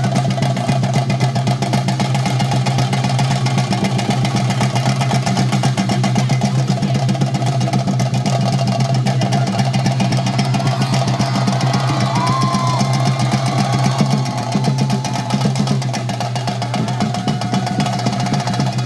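Chenda drums beaten in a fast, continuous roll, the percussion that accompanies a theyyam ritual, over a steady low hum.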